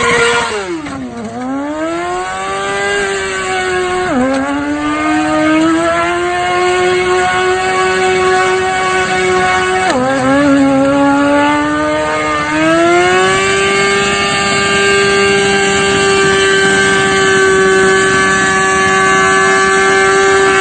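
Sport motorcycle engine revving hard. The revs dip and climb back three times, then rise from about twelve seconds in to a high, steady pitch that is held. The rear tyre is spinning free in a burnout while the bike lies on its side.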